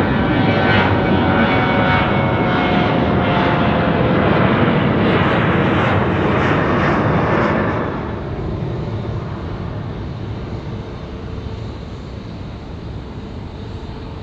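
Jet airliner's engines passing close by, loud, with tones that slide down in pitch as it goes past. The noise drops off about eight seconds in and then fades away.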